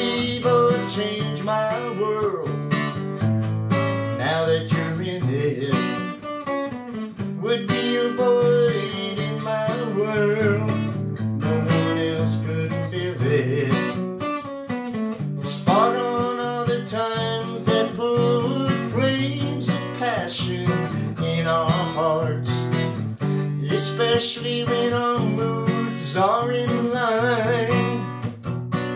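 Acoustic guitar strummed in a blues, with a man singing over it.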